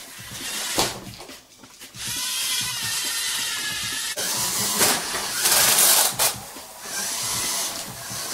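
Small electric motors of Lego robots whirring and whining as they drive, with plastic parts knocking now and then. The sound is loudest for about a second just past the middle.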